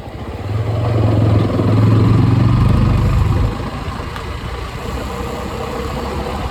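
Jawa 42's single-cylinder engine and exhaust running, swelling louder for about three seconds from half a second in, then settling back to a steady, quieter run.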